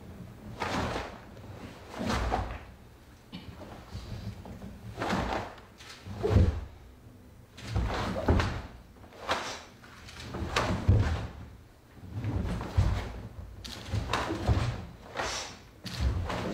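A karate kata being performed: about a dozen sharp bursts roughly a second apart as the gi snaps and bare feet strike and slide on a wooden floor, some strikes louder than others.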